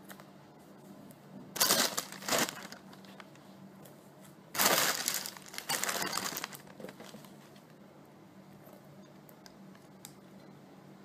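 Album packaging being torn and crinkled open by hand: two short rustles about two seconds in, then a longer, louder rustle lasting about two seconds near the middle.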